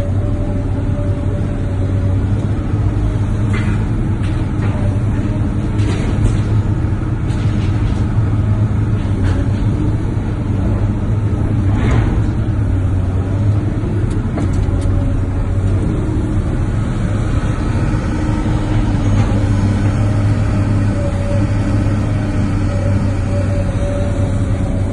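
Heavy diesel engine running steadily with a deep hum, its pitch shifting slightly as the load changes, with a few sharp knocks and clanks along the way.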